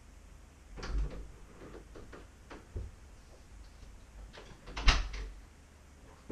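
A room door and a person moving about a small room: a few knocks and clatters, the loudest a sharp knock about five seconds in.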